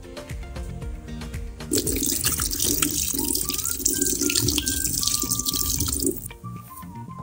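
Water splashing in a stainless steel sink as peeled potatoes are washed by hand in a pot of water, starting about two seconds in and stopping about a second before the end.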